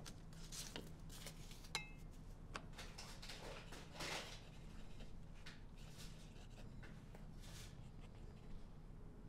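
Quiet room with faint handling sounds: glass medicine bottles lightly clinking, with one sharp glass clink that rings briefly about two seconds in, then soft scratching and rustling.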